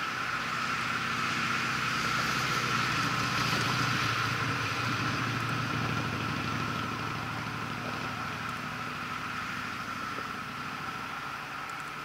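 An engine running steadily over a constant hiss, loudest a few seconds in and fading toward the end.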